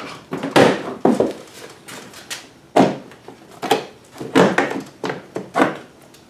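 Plastic side shroud of a snowmobile being popped off: a string of sharp plastic knocks and clacks, about eight in all, as its clips let go and the panel is worked free and lifted away.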